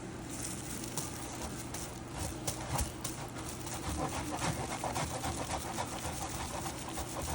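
Aged Parmesan being grated on a multi-sided grater: quick, repeated rasping strokes that get stronger after about two seconds.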